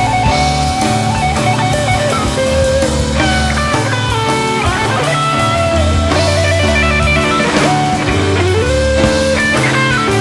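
Live rock band playing an instrumental passage: an electric guitar lead with bending, gliding notes over bass guitar and drum kit, with no vocals.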